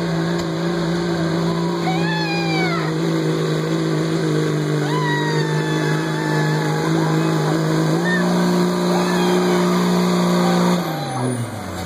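Diesel pickup truck engine held at high, steady revs under heavy load while pulling a weight sled. The pitch steps up slightly about eight seconds in, then the revs drop off sharply near the end as the pull finishes.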